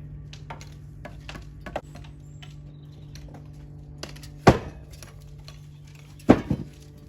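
Metal masonry tools clinking and knocking on stone: scattered light taps, then two loud sharp strikes, the second followed closely by a smaller one, over a steady low hum.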